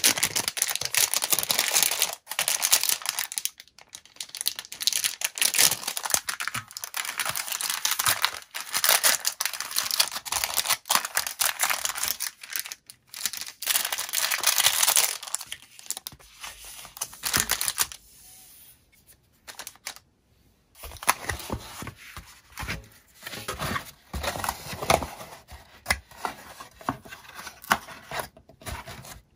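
Packaging being handled, crinkling and tearing as it is opened. It pauses briefly about two-thirds of the way in, then the crinkling starts again more sparsely.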